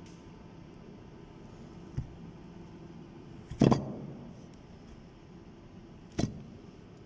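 Three knocks of metal turbine parts being handled, the loudest about halfway with a short ringing tail, over a steady low workshop hum.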